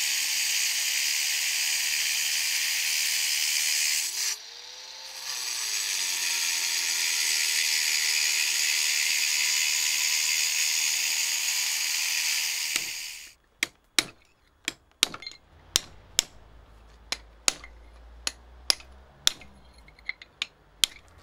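Angle grinder with a cutting disc cutting grooves into a granite boulder: a steady high hiss that dips briefly about four seconds in. After a cut about 13 seconds in, a hammer strikes a chisel into granite in sharp separate blows, about two a second.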